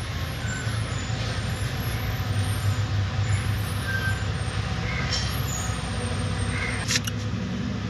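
Steady low mechanical hum of workshop background, with a few faint light clinks and a sharp tap about seven seconds in.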